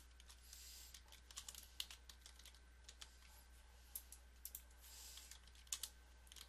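Faint typing on a computer keyboard: a run of irregular keystroke clicks as text is entered.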